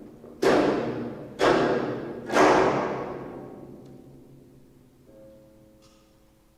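Geomungo ensemble: strings struck hard with the bamboo plectrum three times about a second apart, each stroke ringing out and fading, the third the loudest. A softer plucked note about five seconds in rings on quietly.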